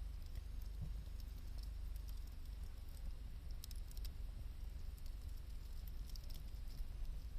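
Wood campfire crackling, with scattered sharp pops clustered about halfway through and again near the end, over a steady low rumble.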